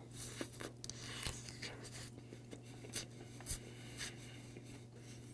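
Close-miked mouth sounds of a person chewing a mouthful of steamed rice topped with salted pollock roe: scattered wet smacks and clicks, with one sharper click about three and a half seconds in.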